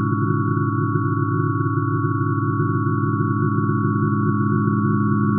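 Synthesized tones of hydrogen's atomic emission spectrum: its light frequencies are halved many octaves down into hearing range and sound together as a held chord. A dense low drone of tones sits under a few thinner, higher tones, all steady and unchanging.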